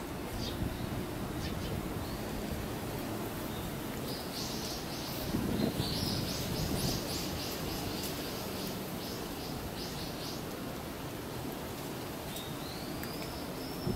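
A bird calling: a run of short, high notes repeated two or three times a second for several seconds, starting about four seconds in, then a drawn-out high whistle that rises and falls near the end, over a steady low background hum.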